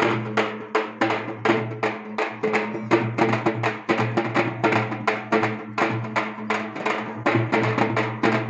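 Large frame drums beaten in a fast, steady rhythm of about four or five sharp strokes a second, with a steady low hum underneath.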